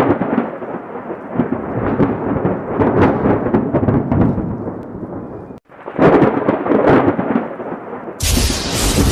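Thunder sound effect: a long rumbling peal that cuts off abruptly about five and a half seconds in, then a second loud peal straight after. Near the end a loud hiss spreading across all pitches joins it.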